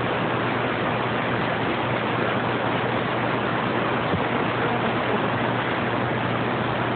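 Radio receiver static: a steady, even hiss with a faint low hum under it, heard while no station is talking.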